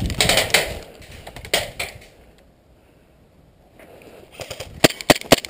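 Rustling of gear and brush as a gun is handled, then a near-quiet moment, then a quick string of sharp pops near the end: shots from a gas airsoft pistol.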